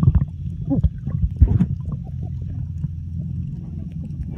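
Muffled underwater sound picked up by a submerged camera: a steady low rumble with scattered clicks and knocks.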